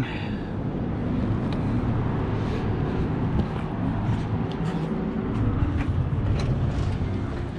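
Steady rumble of road traffic, with a few light footsteps on pavement.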